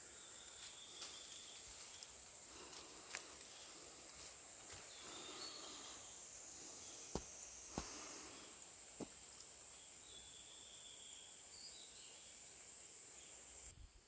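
Faint forest ambience: a steady high-pitched insect buzz with a few short high chirps and several sharp clicks. The buzz cuts off suddenly just before the end.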